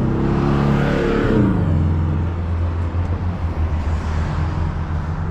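A motor vehicle passes close by, its engine sound swelling and then dropping in pitch as it goes. A steady low hum of road and wind noise continues afterwards.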